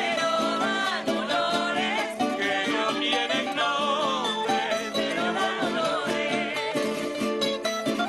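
An eastern Venezuelan folk song, sung by a group of voices led by women, over strummed and plucked small guitars and a guitar. The singing has a clear vibrato, and the music goes on steadily without a break.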